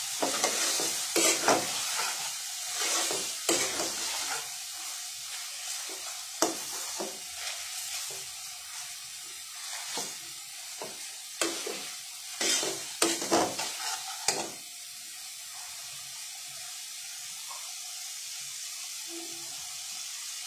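A spiced vegetable and soybean curry sizzling in oil in a metal pan. A spatula scrapes and knocks against the pan as it is stirred for the first fourteen seconds or so, and after that there is only the steady sizzle.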